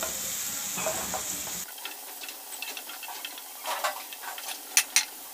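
Wooden spatula stirring and scraping onions, tomatoes and spice powders frying in oil in a frying pan, with a soft sizzle and scattered scrapes and taps against the pan.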